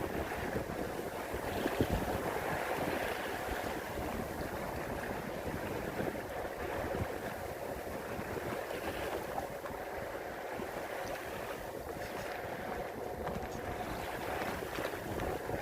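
Water rushing and splashing along a sailboat's hull as it sails, with wind buffeting the microphone in a low gusty rumble; a single louder knock about two seconds in.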